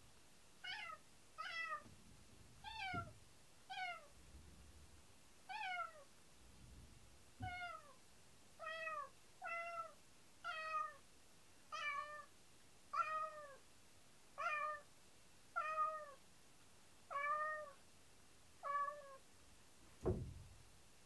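Domestic cat meowing over and over, about sixteen calls roughly a second apart, most bending down in pitch at the end. A short thump near the end.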